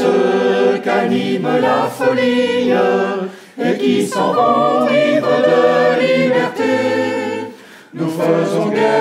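Mixed a cappella choir of women's and men's voices singing in harmony, in held chordal phrases with two short breaks, about three and a half seconds in and near the end.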